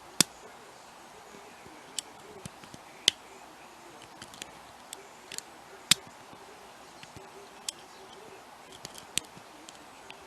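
Lock pick working the pins of a pin-tumbler challenge lock held in hand: irregular sharp metallic clicks and ticks, three of them much louder, as pins are lifted and set.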